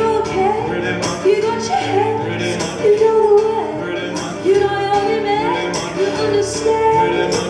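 Live band music with a woman singing sliding melodic lines over steady percussion hits.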